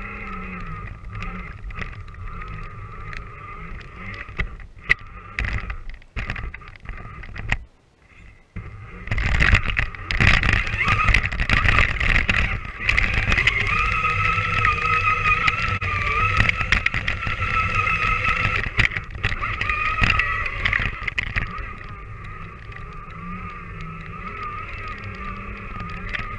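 Danchee RidgeRock RC truck's electric motor and drivetrain whining as it drives through snow, heard from on board. The whine drops away twice, about six and eight seconds in, then comes back louder and holds for about twelve seconds before easing off.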